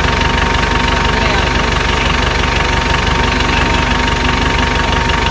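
Tube-frame off-road buggy's engine idling steadily, with an even, rapid low pulse.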